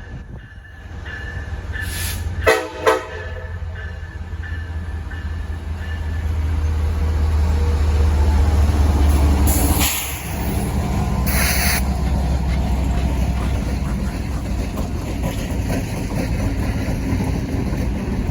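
Train Q693 passing at close range: a deep diesel locomotive rumble builds and is loudest around eight to ten seconds in, with two short horn blasts about two and a half seconds in. The rest is the steady noise of the cars rolling by.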